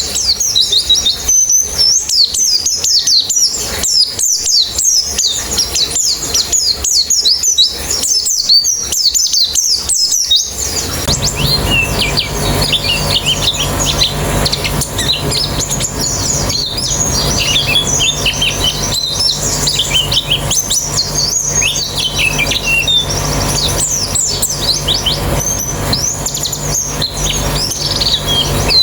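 A colony of white-eyes (pleci) chirping and twittering in rapid overlapping bursts of high, quick notes. About ten seconds in, a steady low hum joins underneath the birdsong.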